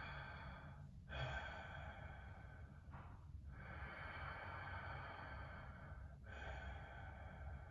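A man demonstrating conscious connected breathing through an open mouth: long, audible breaths in and out, each about two to three seconds, run one into the next with almost no pause between them.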